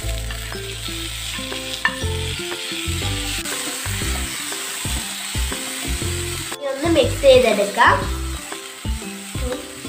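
Chopped onion, tomato and green chilli sizzling in hot oil in a nonstick frying pan as a spoon stirs them, a steady frying hiss.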